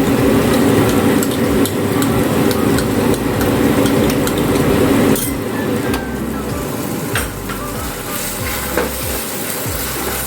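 Spatula stirring and scraping spice masala with freshly added yogurt in a frying pan, the mixture sizzling, with many short scrapes. A steady low hum under it cuts off about halfway through.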